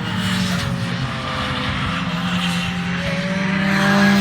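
Race car engine running on a circuit, its pitch dipping and then climbing again, growing louder toward the end as it draws nearer.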